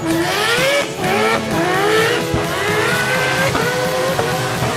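Rotary-swapped car drifting: the engine revs climb in quick rising sweeps several times, falling back between each, over the hiss of spinning tyres.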